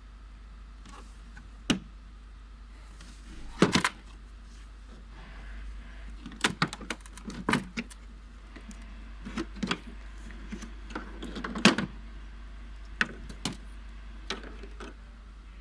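Unboxing handling noise: scattered clicks, knocks and rustles as a cordless circular saw and its packaging are handled, the loudest knocks about four seconds in and near the twelve-second mark, over a steady low hum.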